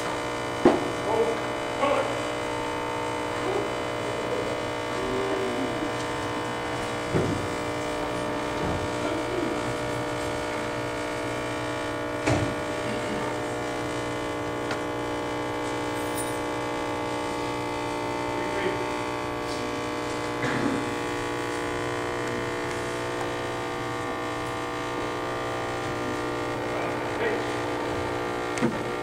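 Steady electrical buzzing hum with many fixed tones, typical of a sound system or recording hum, with a few short knocks, the first about a second in.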